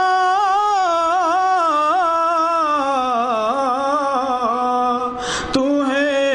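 A man singing an unaccompanied Urdu munajat, drawing one syllable out into a long melismatic line with quick wavering ornaments; the pitch slides lower about three seconds in. There is a short break for breath about five seconds in, and then the voice carries on.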